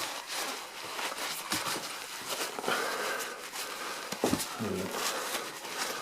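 Hand handling noise of small metal calculator parts: irregular light clicks and rubbing as gummed-up levers are worked on their shaft, with one louder click a little past the middle.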